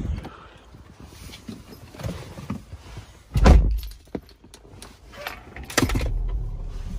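A car door shutting with a heavy thunk about halfway through, then an Audi A3's engine starting with a short burst near the end and settling into a low, steady idle.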